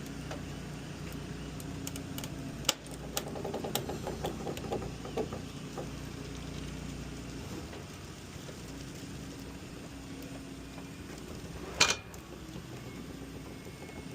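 Heavy equipment engine running steadily, with sharp knocks and clatter a few seconds in and one loud bang near the end.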